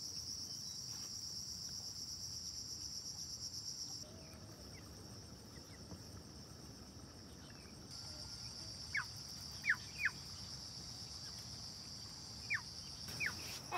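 Insects trilling in a steady, high, pulsing chorus that fades back about four seconds in and returns louder about eight seconds in. A few short, sharp falling chirps come near the end.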